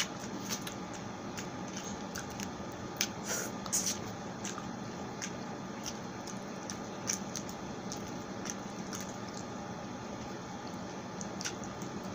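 Close-miked wet chewing and mouth sounds of pork sisig and rice eaten by hand, with scattered sharp smacks that cluster about three to four seconds in, over a steady hiss.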